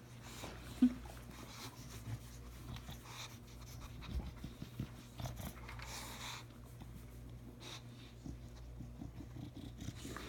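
Bulldog sniffing and breathing noisily as it noses a treat-dispensing ball across the carpet after kibble, with scattered small clicks.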